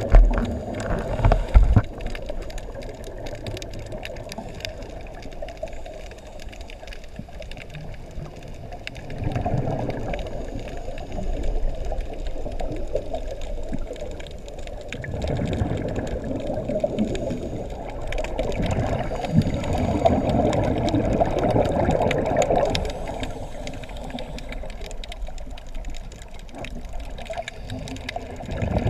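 Muffled underwater water noise picked up by a dive camera in its waterproof housing, swelling louder in several long stretches, with a couple of low knocks against the housing near the start.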